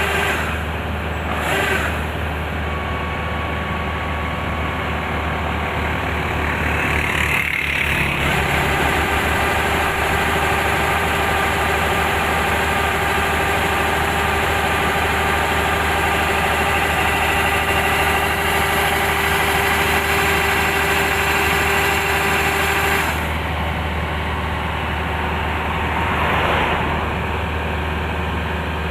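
Kubota rice combine harvester running steadily, its engine and threshing machinery making a continuous drone with several steady tones, with a brief rushing swell about seven seconds in and again near the end.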